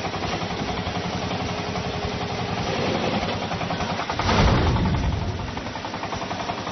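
Engine of a homemade chili-picking harvester running with an even, rapid pulse. It grows louder and deeper for a moment about four seconds in.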